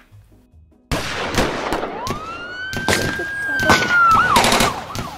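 Police siren wailing with gunshots cracking over it, starting suddenly about a second in from near silence. The siren holds one long rising wail, then drops into a quicker yelp near the end.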